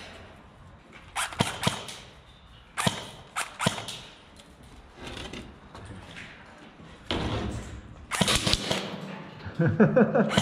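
Airsoft replicas firing in short bursts: sharp snaps in twos and threes about a second in and again around three seconds, then a longer clattering stretch near eight seconds.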